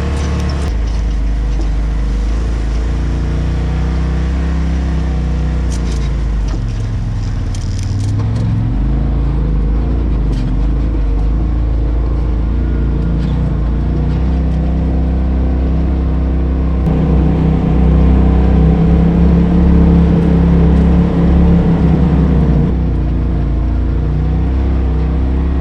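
Polaris RZR side-by-side's engine running under load on a rough trail, its revs rising and falling, louder for a few seconds past the middle. A few short knocks sound around a quarter of the way in.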